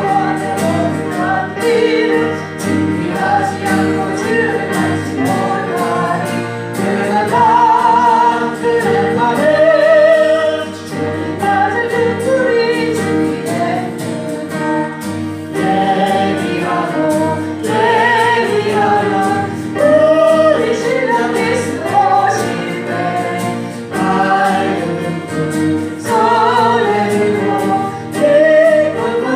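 Congregation singing a Korean gospel hymn together, with keyboard or organ accompaniment.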